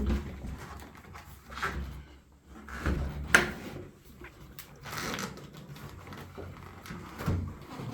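Scattered knocks, clicks and clunks of an upright fridge's door and metal hinge parts being handled and lifted, the sharpest a click about three and a half seconds in.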